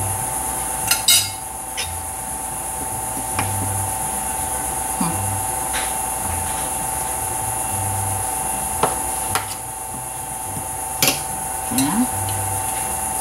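Knife and fork clinking and scraping on a plate as a pork chop is cut. About ten short clinks come at irregular intervals, a few in quick pairs, over a steady background hum.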